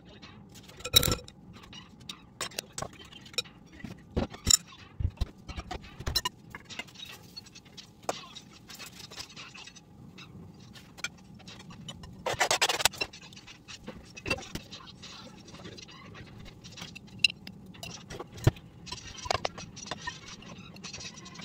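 Kitchen food prep: a spoon clinking and scraping in a glass mixing bowl of pasta, with scattered sharp knocks of jars and utensils on the counter. A brief rustle, like handled paper, a little past halfway, and a spell of scraping near the end.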